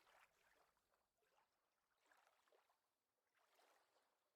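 Near silence, with only a very faint trace of gently lapping water.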